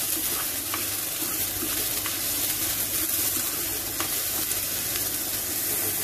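Finely chopped onion sautéing in hot oil with mustard seeds in a pan: a steady sizzle. A steel spoon stirs it, clicking lightly against the pan a few times.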